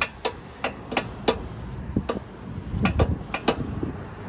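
Sharp metallic clicks and clinks, about a dozen at uneven intervals, from a U-Haul tow dolly's tire strap and its ratchet hardware being handled to unstrap it.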